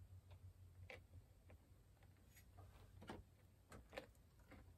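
Faint, scattered small clicks and ticks of plastic wire-harness connectors being handled and pushed onto a treadmill console's display board, over a low steady hum.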